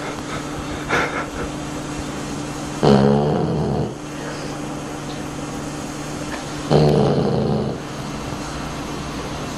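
A dog snoring: two long, pitched snores about four seconds apart, each lasting about a second, with a shorter, fainter one about a second in.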